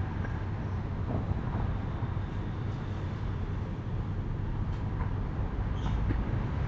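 Steady low outdoor rumble like distant road traffic, with a few faint knocks, about a second in and again around five and six seconds in.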